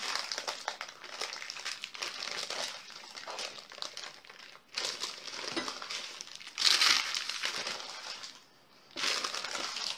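Baking paper crinkling and rustling as it is lifted and rolled tightly around a meat roll, with a louder burst of crinkling about seven seconds in.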